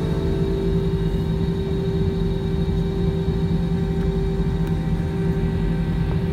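Airliner cabin noise while taxiing, heard from inside the cabin: the jet engines running at idle as a steady rumble with a low hum and a steady whine.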